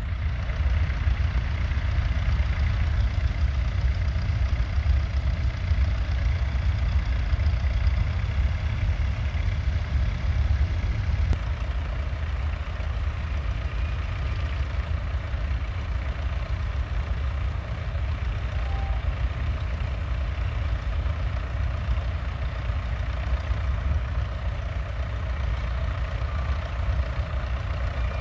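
International Harvester B275's 2.3-litre four-cylinder diesel engine running steadily with a deep, even rumble.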